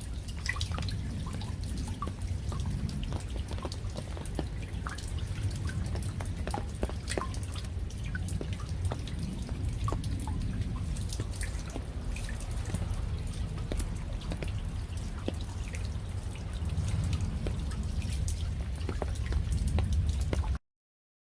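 Raindrops falling: many separate drops tapping at irregular intervals over a steady low rumble. The sound cuts off suddenly near the end.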